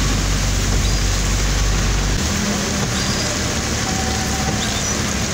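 Heavy monsoon rain falling steadily on a vehicle's roof and windscreen, heard from inside the vehicle, over the low rumble of its engine; the rumble drops away about two seconds in.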